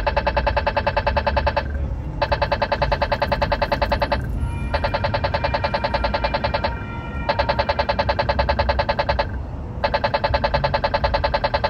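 Polara accessible pedestrian signal push button sounding its rapid tick, the walk indication. Fast, buzzy ticks come in runs of about two seconds with short pauses between them, over a low hum of traffic.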